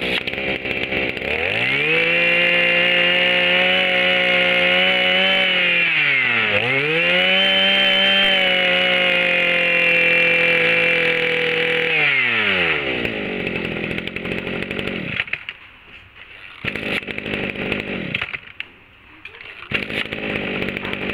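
Kioritz Echo 26 brush cutter's 26cc two-stroke engine revving up from idle to full throttle and holding there for about ten seconds, with one brief let-off and re-rev near the middle. It then winds down to idle and gives a few short throttle blips near the end.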